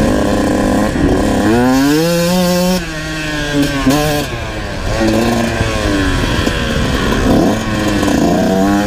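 Kawasaki KX 125 two-stroke dirt bike engine revving hard under load, its pitch climbing and then dropping back several times as the rider opens and closes the throttle.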